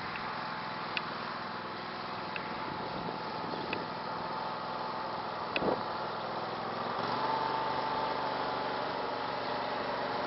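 Craftsman garden tractor engine running as the tractor drives across the yard, with a few sharp clicks and one louder knock a little past halfway. About two-thirds of the way through, the engine note rises.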